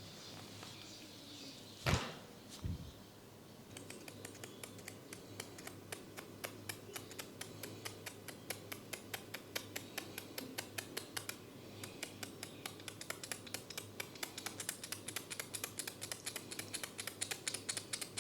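Hair cracking by a barber: a steady, rapid run of small crackling clicks, about five a second, from strands of hair being snapped. Two single louder clicks come about two seconds in.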